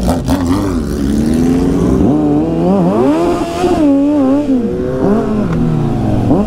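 Several sport motorcycles revving, their engine notes overlapping and rising and falling in pitch.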